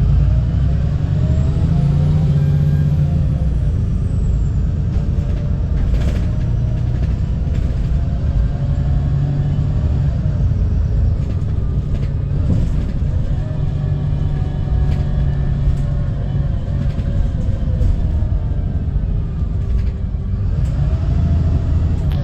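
Onboard sound of a VDL SB200 Wright Pulsar 2 single-deck bus under way: a loud, steady low engine rumble with a whining note that rises and falls several times as it pulls through its gears. Occasional short knocks and rattles sound over it.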